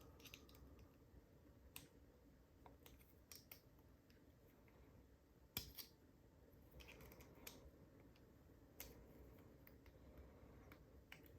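Faint, scattered clicks and taps of small metal padlock parts being handled during disassembly, the loudest about halfway through.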